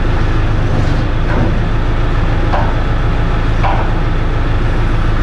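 New Holland C185 compact track loader's diesel engine running steadily, with a few faint clanks over it.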